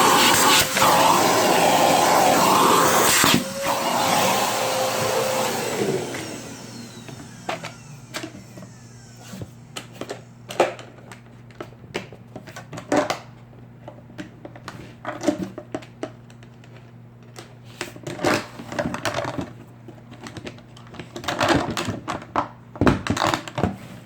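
A motor-driven appliance running with a loud, steady rushing noise, switched off about six seconds in. Scattered clicks and knocks follow over a faint steady hum.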